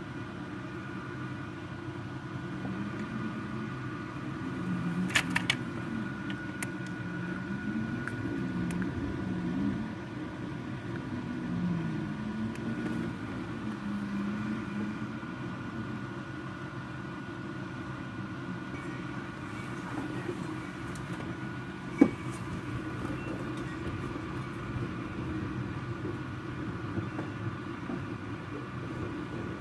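Strong thunderstorm wind rushing low and steady, with a wavering low moan through the first half. A few sharp clicks come early on, and one louder snap about two-thirds of the way through.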